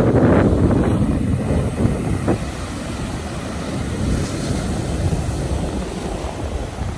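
Stormy sea: the rumble of breaking surf with wind buffeting the microphone, loudest in the first couple of seconds and then easing a little.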